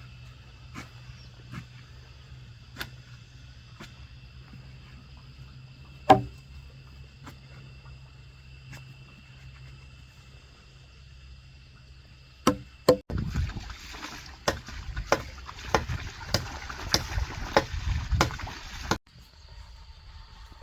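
Chopping strikes of a blade on wood: a few scattered knocks, one loud ringing knock about six seconds in, then a busier run of strikes about two a second that stops suddenly near the end.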